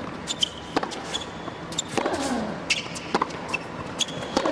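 Tennis rally on an indoor hard court: sharp racket strikes and ball bounces, shoes squeaking on the court surface, and a player's grunt falling in pitch with his shot, about every two and a half seconds.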